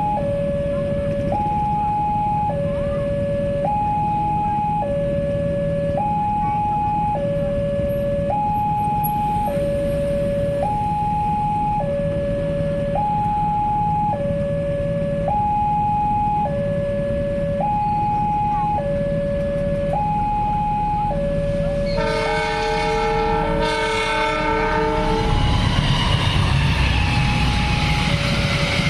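Railway level-crossing warning siren sounding a steady two-tone hi-lo alternation, switching tones about once a second. About 22 seconds in, a train horn sounds a chord of several tones for about three seconds, and the rumble of the passing train builds near the end.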